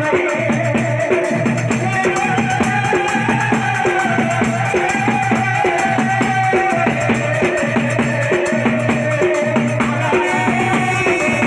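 Rhythmic folk devotional music: drums and a rattle keep a steady, fast beat under a held melodic line.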